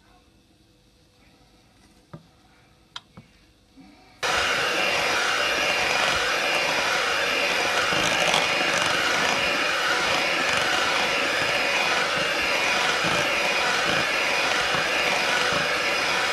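A few faint clicks, then about four seconds in an electric hand mixer switches on abruptly and runs steadily, its beaters whisking thick chocolate muffin batter in a bowl.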